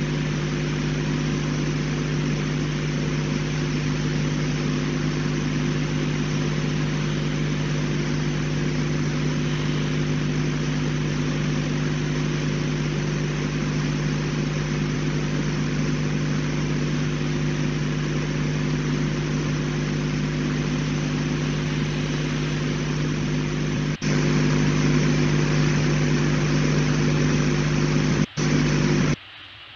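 Steady electrical hum with several fixed tones under a constant hiss, typical of a remote wildlife camera's audio feed. It steps up louder about 24 seconds in and cuts out briefly twice near the end.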